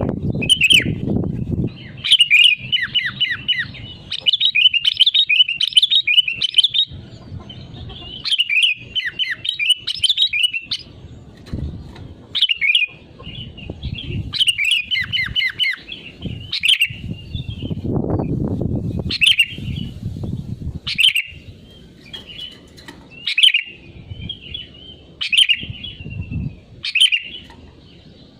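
Sooty-headed bulbul (kutilang) singing vigorously: short, bright chirps and quick chattering phrases, repeated with brief pauses. Bursts of low rumbling noise come and go underneath.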